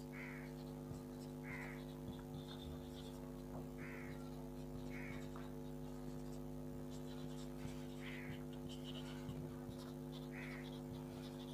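Steady low electrical hum, with short higher-pitched squeaks recurring every second or two over it.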